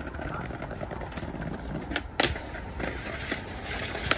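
Skateboard being handled on stone steps: a few sharp clicks and knocks of the board over a faint outdoor background.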